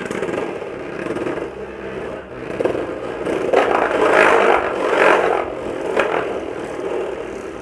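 Beyblade Burst Tempest Dragon spinning top whirring and scraping across the floor of a plastic Beyblade stadium as it travels out to the rim. It gets louder in the middle with a few sharp clicks, and fades near the end as the top winds down.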